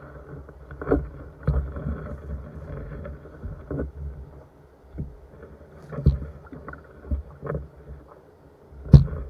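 Irregular knocks and bumps in a small boat as a gill net full of fish is hauled aboard by hand, the loudest about nine seconds in.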